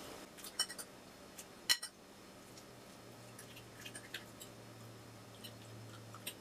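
A metal fork clinking and scraping against a ceramic plate in a few light, sharp taps, the loudest about two seconds in.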